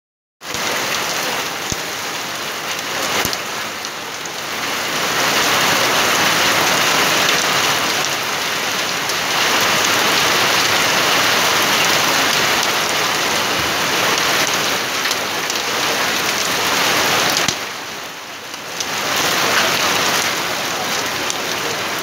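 Heavy rain pouring down in a thunderstorm: a steady, dense hiss of rain on surfaces. A couple of sharp drip taps sound in the first few seconds, and the rain dips briefly near the end before returning.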